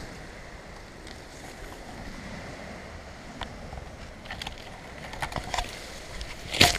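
Steady wind noise on the microphone, with a few light clicks and rustles and one sharp crackle near the end.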